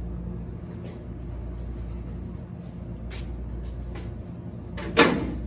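Steady low hum of running machinery, with a few light clicks and one loud sharp knock near the end that rings briefly.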